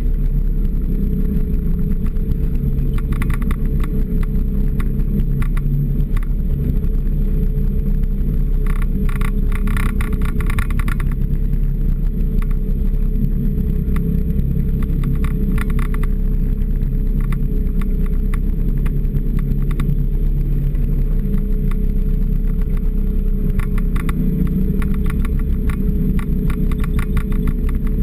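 Off-road vehicle engine running steadily while driving along a snowy trail, with a steady whine over the engine's hum. Several bursts of rattling come and go every few seconds.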